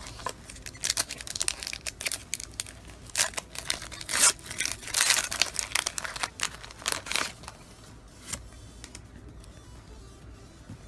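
Shiny foil wrapper of a Pokémon TCG Guardians Rising booster pack crinkling and tearing open by hand: a dense run of crackles and rips for about seven seconds. After that comes quieter handling of the cards, with a single click.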